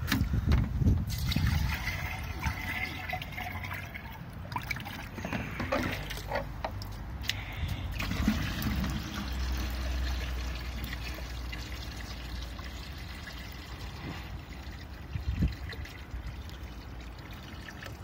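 Water poured from a plastic container into a plastic sink basin with its plug in, filling it. It splashes and pours most in the first couple of seconds, then settles into a steadier, fading trickle.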